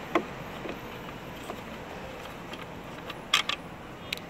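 Sharp clicks and clinks of a ratchet wrench and screwdriver on metal while the blower housing screws are taken out: one near the start, two in quick succession a little over three seconds in, and a smaller one near the end, over a low steady background noise.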